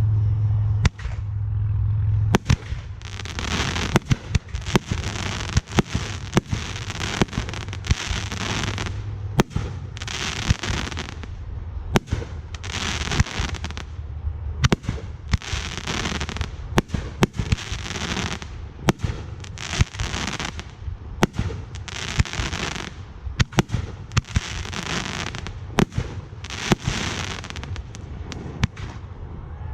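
Aerial fireworks display: a rapid string of sharp bangs, about one to two a second, with repeated bursts of hissing noise between them.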